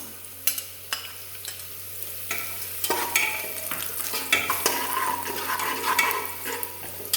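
Sliced onion and whole spices frying in coconut oil in a pressure cooker, sizzling while a spoon stirs them, with scattered clicks of the spoon against the pan. The sizzle grows louder about three seconds in.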